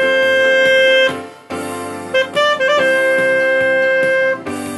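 Alto saxophone playing a melody: a long held note that fades away about a second in, a quick run of short notes, then a second long held note that stops shortly before the end, over a keyboard accompaniment that carries on after the saxophone stops.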